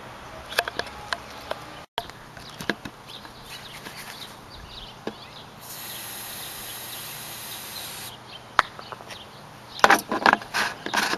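Handling noise from a PVC potato cannon with the camera mounted on it: scattered clicks and knocks, a steady hiss for about two and a half seconds midway, and a flurry of louder knocks near the end.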